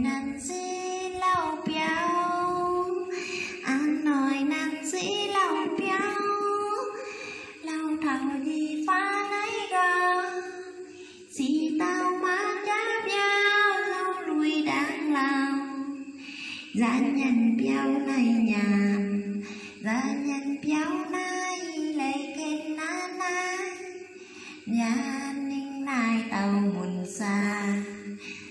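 A woman singing solo into a handheld karaoke microphone, a vè (folk narrative song), without accompaniment. Her voice wavers and slides in phrases of a few seconds, with short breaths between them.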